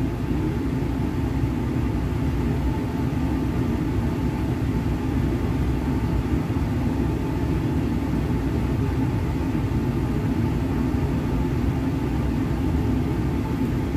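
Steady rushing airflow of a laboratory fume hood's ventilation, with a faint low hum beneath it.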